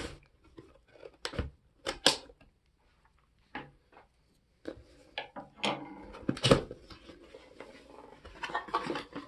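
Cardboard box being opened by hand: a small blade worked at the top seal, then the lid flap pried up and pulled open. It comes as a run of irregular clicks, taps and scrapes, the loudest about six and a half seconds in.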